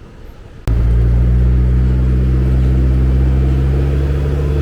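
A vehicle's engine running steadily with a loud, even low hum, starting abruptly about a second in.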